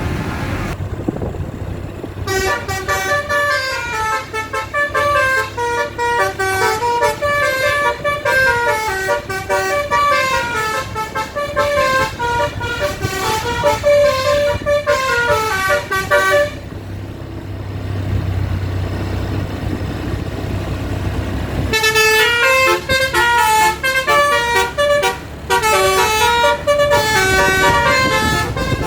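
Basuri multi-tone bus horn (telolet) playing a quick melody of stepping notes over a low engine hum. The tune starts about two seconds in and breaks off for about five seconds, leaving only the engine hum, before another tune starts.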